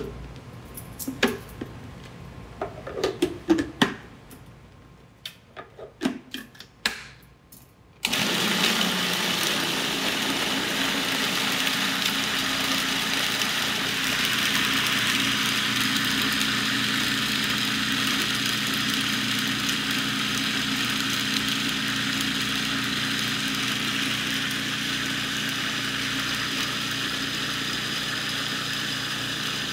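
A few clicks and knocks from the food processor's lid and bowl. About eight seconds in, its motor switches on and runs steadily, puréeing chickpeas for hummus.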